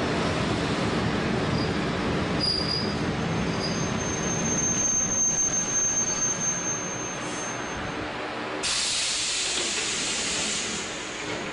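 Shin-Keisei 200 series nose-suspended-motor electric train braking to a stop, heard from the cab. A running rumble carries a steady high brake squeal for a few seconds. About two-thirds through, a sudden loud hiss of compressed air sets in as the train halts and fades near the end.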